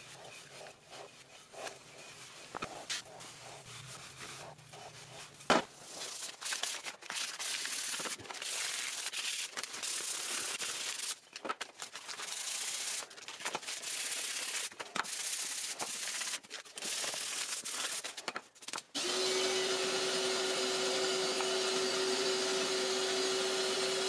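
Hand rubbing on a wooden sconce backplate in quick, irregular strokes, after a sharp click about five seconds in. For the last five seconds a steady machine hum with one constant tone takes over, starting abruptly.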